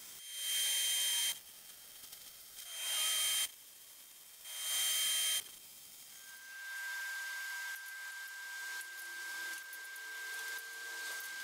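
Wire-feed (MIG-style) welder laying three short tack welds on steel frame tubing: three hissing bursts of arc, each about a second long, with short pauses between them. After that a quieter steady high hum with a faint hiss takes over.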